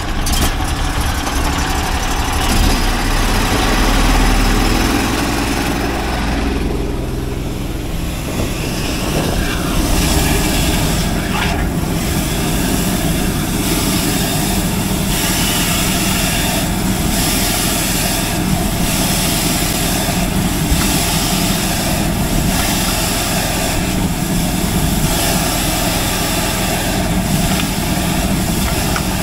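Engine of a van-mounted high-pressure sewer jetter running steadily, driving the water pump while the jetting hose is fed down a drain.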